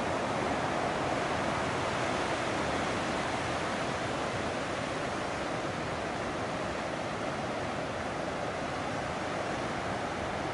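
Ocean surf, a steady rushing wash of waves breaking on the shore and against the rocks.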